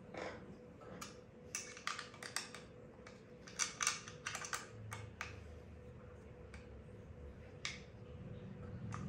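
Light, sharp clicks and taps of small hardware being handled while fitting a motorcycle bar-end mirror, a quick cluster of about a dozen in the first five seconds and a few scattered ones later, over a faint steady hum.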